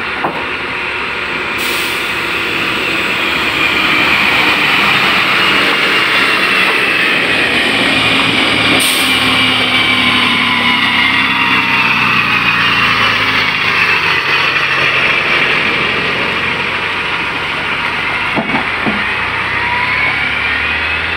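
Heavy diesel engines running, their pitch slowly rising and falling as they rev.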